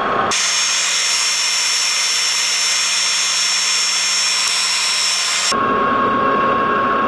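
Metal lathe taking a boring cut inside a spindle hub: a loud steady hiss of cutting with a high whine over it. It starts suddenly just after the start and cuts off suddenly about five and a half seconds in, leaving a quieter steady hum with a thin whine.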